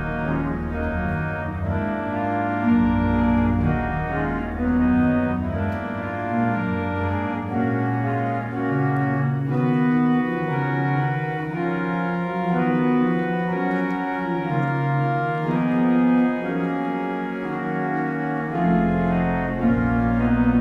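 Church organ playing sustained, overlapping chords and melody notes. The deep pedal bass drops out for most of the middle and comes back near the end.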